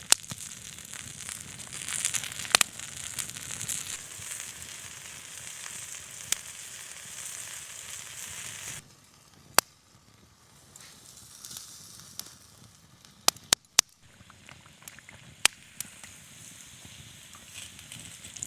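Food sizzling steadily over a wood campfire, with small crackles; about nine seconds in it cuts off abruptly, and the quieter wood fire crackles with a few sharp, isolated pops.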